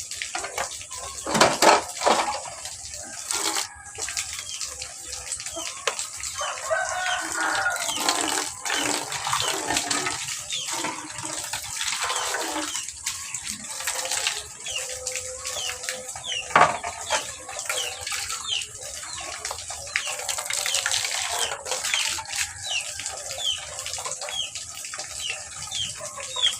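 Water running from a tap while containers are washed by hand, with a few sharp knocks of dishes against each other. Chickens chirp in the background, more steadily in the second half.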